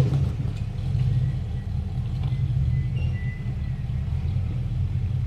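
Off-road vehicle engine running steadily, a low rumble.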